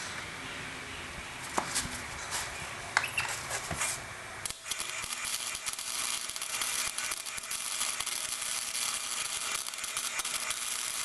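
Electric arc welder welding a steel bumper on, a steady dense crackle that starts about four and a half seconds in, after a few scattered clicks and knocks.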